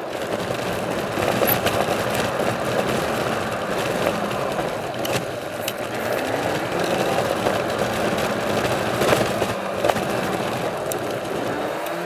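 Interior noise of a moving VAZ-21093 hatchback: steady road and tyre noise with the carburetted engine running underneath, and scattered sharp knocks and rattles from the body over the road surface.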